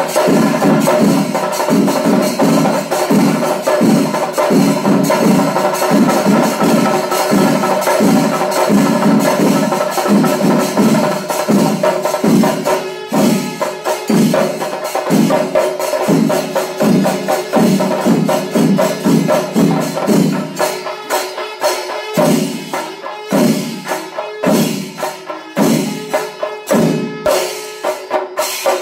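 Panchari melam: massed chenda drums beating a steady pulse under the constant clash of ilathalam hand cymbals. About two-thirds of the way through, the playing thins into sharper, more separated strokes.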